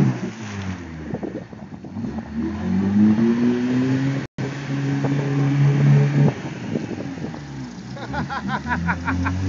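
Stock Jeep engine revving up and down repeatedly as it churns through a mud hole on street tyres, with the wheels spinning and throwing mud and water.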